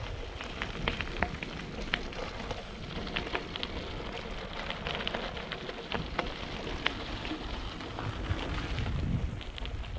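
Bicycle ride: tyres rolling over a rough, gritty surface, with a steady hiss full of small crackles and clicks, and wind buffeting the microphone in low gusts.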